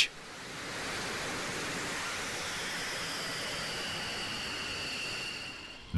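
F-15E Strike Eagle's jet engines running at idle: a steady rushing hiss with a faint high whine that comes through in the second half. It fades in over the first second and fades out near the end.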